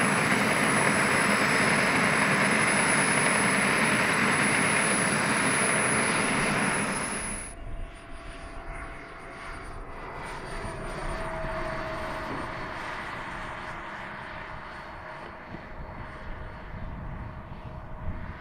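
Radio-controlled model jet's small turbine engine running close by: a loud rushing noise with a steady high whine. About seven seconds in the sound cuts abruptly to a quieter, more distant model jet turbine, still with a faint whine.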